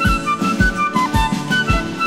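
Background music with a steady drum beat of about two beats a second under a high, sustained melody line.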